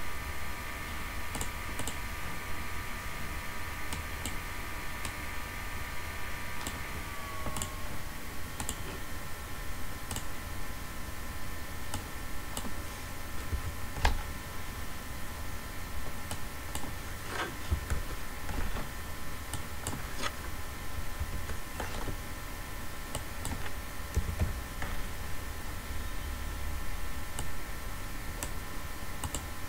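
Computer keyboard typing and mouse clicks, scattered irregular taps, as values are keyed into software fields. Underneath runs a steady low hum with faint steady tones.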